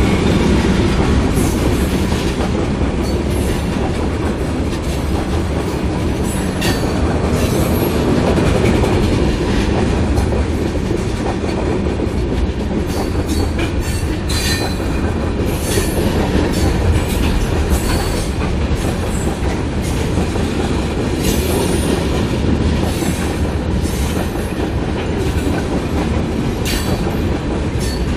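Freight train of tank cars rolling past at speed: a steady rumble of steel wheels on rail, with frequent sharp clicks and clatter as the wheels cross rail joints.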